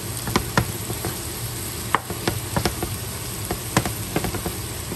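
Fried rice sizzling in a pan as a spatula stirs it, with irregular sharp clicks and scrapes of the spatula against the pan.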